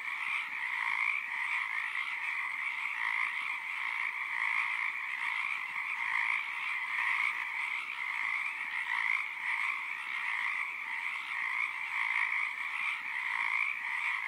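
Dense, steady chorus of frogs from the surrounding swamp, pulsing continuously without a break.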